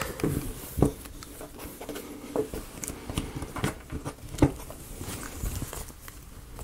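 Scattered small clicks, taps and light scraping of laser-cut plywood model pieces being handled and pressed together, with a sharper click about four and a half seconds in.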